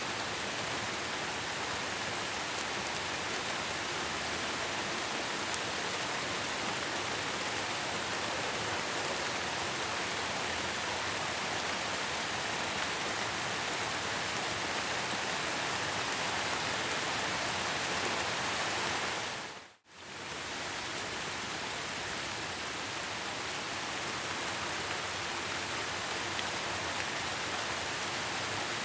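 Steady, even rain falling. About two-thirds of the way through it briefly fades to silence and straight back in.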